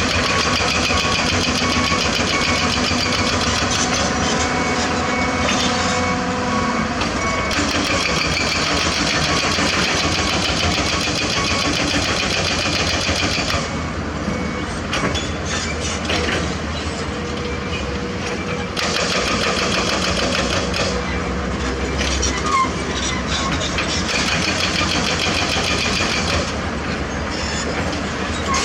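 Heavy diesel earthmoving machinery running and working: a steady engine hum under a harsh, hissing upper layer that drops away about halfway through and returns a few seconds later.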